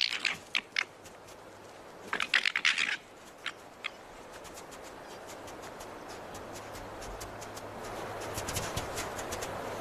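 Red foxes squabbling: two short bursts of rapid, high chattering calls in the first three seconds, then a soft hiss that swells toward the end.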